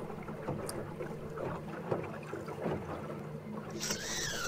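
Small battery-powered electric outboard motor running steadily at low power on a small rowing boat, a faint even hum over water noise. Near the end a brighter hiss comes in with a short falling whistle.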